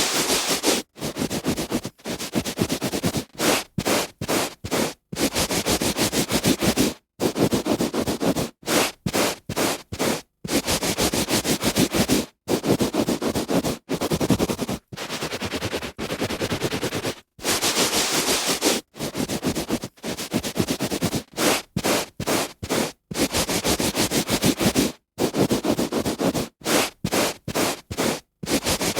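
Hand rubbing on a carpet: scratchy rubbing strokes, some short and quick and others lasting a second or two, with brief silent breaks between them.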